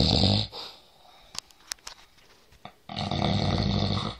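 Loud snoring: one snore ending about half a second in, then another snore starting about three seconds in and lasting just over a second.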